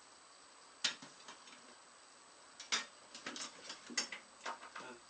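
Metal hand tools clinking and knocking as they are handled and sorted in a toolbox. One sharp clink comes about a second in, then a run of lighter clicks and knocks in the second half.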